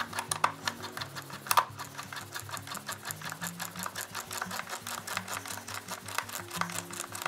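Background music with a stepping bass line under a rapid, even clicking, about six clicks a second.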